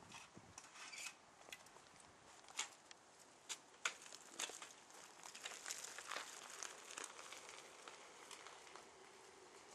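Faint sharp clicks and crackling from a bicycle being handled, mounted and ridden off: scattered ticks and knocks of the bike's parts, then crunching of tyres on a gritty driveway.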